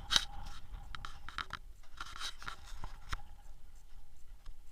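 Irregular crunches and scrapes with a few sharp clicks, the loudest about a fifth of a second in.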